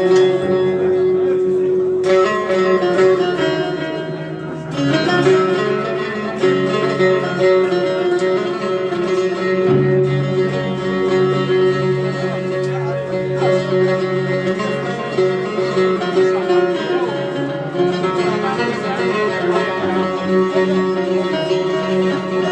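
Live instrumental music on plucked string instruments, a run of notes over a steady held tone.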